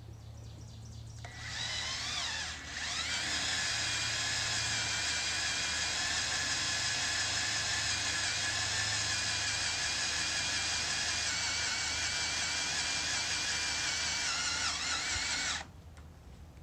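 Cordless drill boring a half-inch bit through a steel trailer flange, the bit cutting the steel with a high-pitched whine. It starts about a second in, stops briefly near the three-second mark, then runs steadily until it cuts off suddenly near the end.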